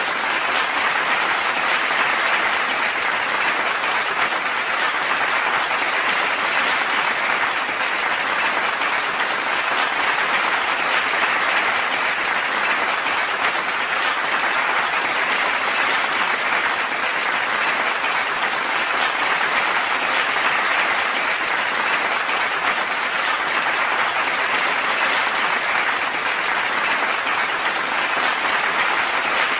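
Steady applause of a crowd clapping, even and unchanging throughout.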